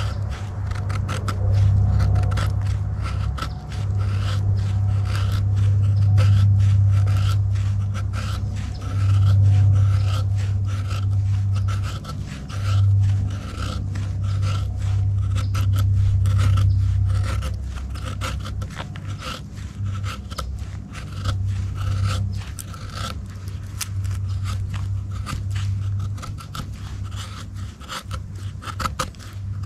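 Serrated edge of a Gerber LMF II knife scraping down a stick of fatwood to raise feather-stick curls, in quick strokes one after another. A steady low hum runs underneath and is louder than the strokes.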